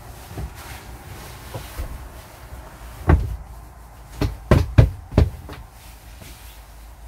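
Dull knocks and thumps of a bed cushion being pushed and fitted into place against the bed frame: one about three seconds in, then a quick run of four about a second later.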